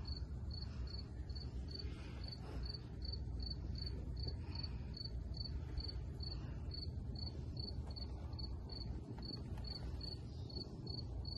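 Cricket chirping steadily, short high-pitched chirps at an even pace of about three a second, over a low steady background rumble.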